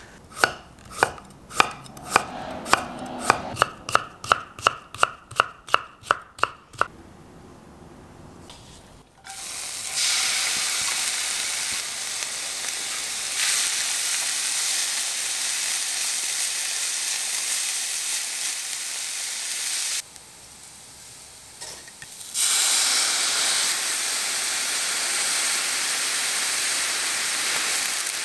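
A kitchen knife chopping carrot on a wooden cutting board, about eighteen quick, even chops. Then burdock root and carrot strips stir-frying in a frying pan with a steady sizzle, which stops for about two seconds and starts again.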